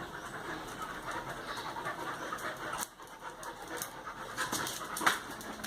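A dog panting steadily in quick, even breaths, with a sharp click about five seconds in.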